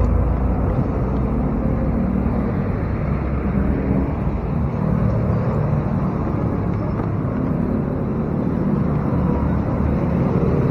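Steady low rumble of motor vehicle engines and street traffic, with no breaks or sudden events.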